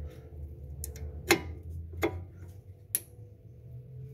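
Brake pads being handled and seated in the caliper bracket, giving sharp clicks: three louder ones a little under a second apart, among a few fainter ones. A low steady hum runs underneath.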